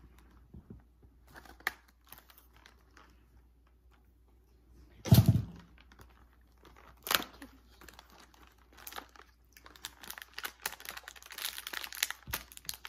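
A cardboard box and its plastic packaging being cut and opened: scattered small handling clicks, a loud knock about five seconds in, then crinkling and tearing of plastic that builds up near the end.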